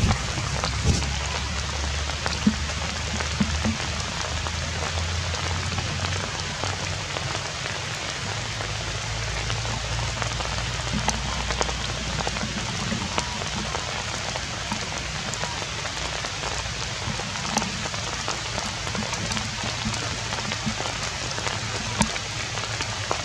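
Steady rain falling, with scattered drops ticking, over a low rumble.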